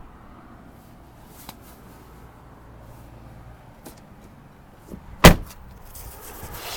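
A 2012 Chevrolet Impala's door shut with one loud, sharp thud about five seconds in, after a few faint clicks of handling.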